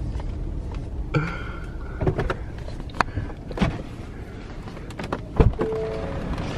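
Knocks and clunks of a pickup truck's doors and gear being handled, over the steady low rumble of the vehicle; the loudest clunk comes near the end.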